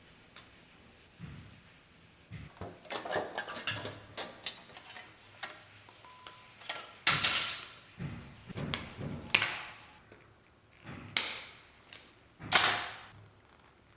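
Hand work on a piece of sheet tin: scattered knocks and clinks, then four short, harsh scraping strokes of metal, each under a second, the loudest near the end.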